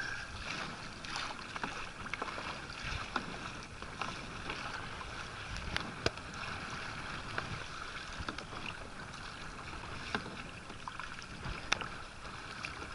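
Kayak paddle strokes, the double blades dipping and splashing in the water, with water washing along the hull and a few sharp clicks.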